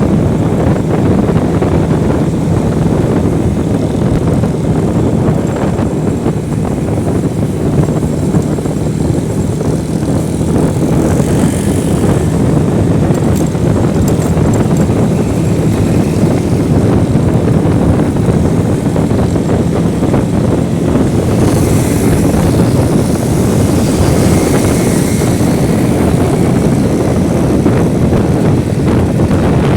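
Onboard sound of a motorcycle being ridden: the engine running steadily with a low hum, largely buried under heavy wind rush on the microphone. Brief swells of high hiss about 11 seconds in and again from about 22 to 26 seconds.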